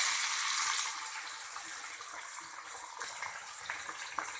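Boiled cluster beans dropped into hot oil and tempering spices, sizzling loudly at first and settling into a steady frying sizzle.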